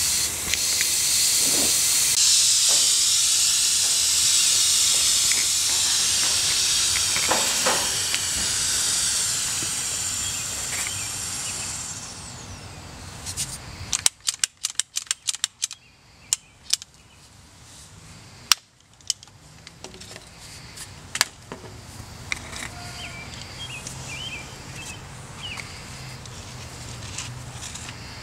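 Compressed air hissing out of a pressurized plastic geothermal loop pipe as the leak-test pressure is let off, the hiss fading away after about ten seconds. Then a ratcheting pipe cutter clicks in a quick run of sharp snaps, and a few more single clicks, as it cuts through the pipe.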